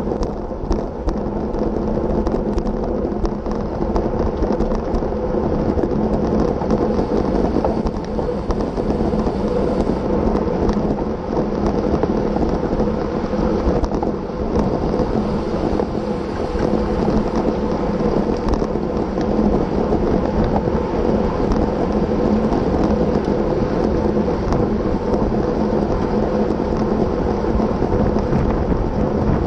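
Wind buffeting the microphone of a camera on a racing bicycle at speed: a steady, loud rushing rumble mixed with road noise.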